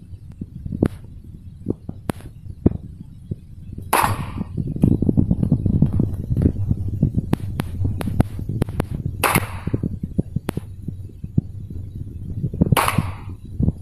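Pistol shots on a firing range: three loud shots a few seconds apart, each with a short echoing tail, among many fainter sharp cracks and knocks.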